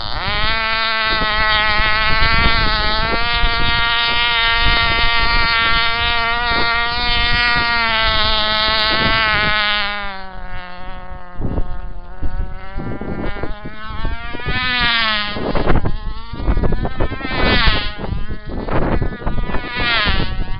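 Control-line model aircraft's small engine running with a high, buzzing whine. It comes in suddenly at the start and holds steady for about ten seconds, then swells and fades about every two and a half seconds as the plane circles on its lines.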